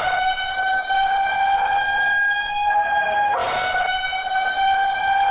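A steady, horn-like electronic alarm tone with many overtones, broken once about three seconds in by a short rushing burst before the tone resumes. It is the repeating attention signal of an emergency alert.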